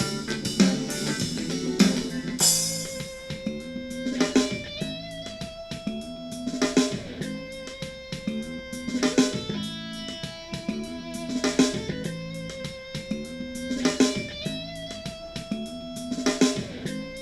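Rock-style music with electric guitar and drum kit played through an XDOBO Queen 1996 Bluetooth speaker during a sound test, a short guitar riff repeating over a steady beat.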